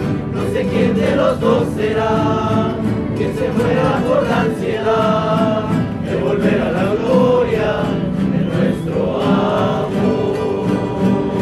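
A rondalla's voices singing together in chorus, with guitars accompanying.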